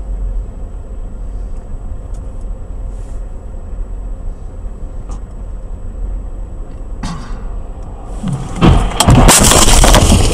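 Steady low rumble of a car driving, heard from inside the cabin, with a brief knock about seven seconds in. Near the end, a sudden, very loud collision: a crash followed by heavy rattling and scraping noise.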